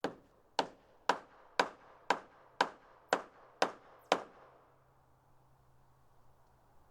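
Hammer striking wood in a steady rhythm, nine sharp blows about two a second, each with a short ring, stopping after about four seconds.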